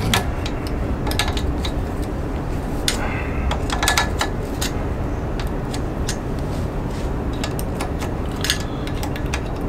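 Hand wrench working the old exhaust flange bolts on a Harley-Davidson motorcycle engine as they are loosened, giving scattered metallic clicks and clinks, a couple ringing briefly about four seconds in. A steady low hum runs underneath.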